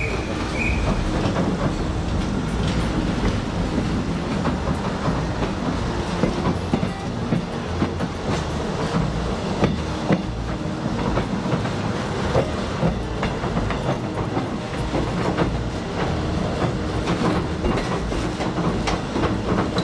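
Narrow-gauge children's railway train running along the track, heard from an open carriage: a steady rumble of the wheels with irregular clicking and knocking over the rails.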